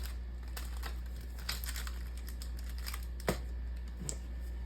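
Paper and wrapper rustling and crinkling as a printed party-favor wrapper is handled and folded, with scattered small clicks and one sharper click about three seconds in, over a steady low hum.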